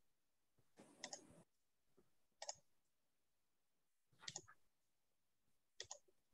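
Near silence broken by four faint double clicks, spaced about one and a half seconds apart.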